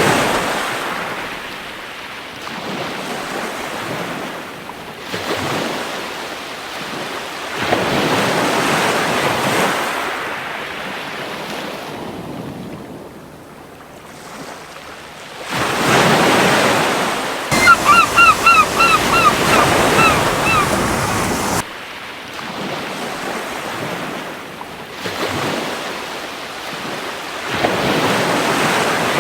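Gentle sea waves breaking and washing up a beach, swelling and fading every few seconds. About eighteen seconds in, a gull gives a rapid series of about ten short calls lasting around three seconds.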